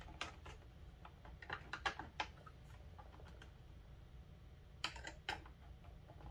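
Light, scattered clicks and taps of hands handling wires and small parts at a power supply's screw terminal strip and plastic mounting plate, a quick cluster around two seconds in and two more sharp clicks near five seconds.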